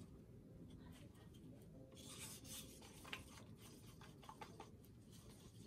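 Faint scraping and light ticking of a stir stick against the sides of a small cup as acrylic paint is mixed with Liquitex pouring medium, the mixture still a little thick; the scraping is clearer from about two seconds in.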